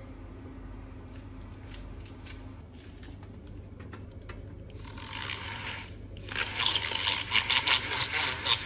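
Uniblend DC-25 corded electric milk frother whisking milk in a plastic cup. It runs in a short burst about five seconds in, stops briefly, then starts again louder with a gritty, rattling buzz.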